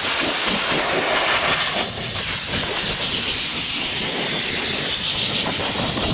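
Soda blaster spraying compressed air and baking-soda media in a steady hiss, stripping paint and rust from a steel toolbox.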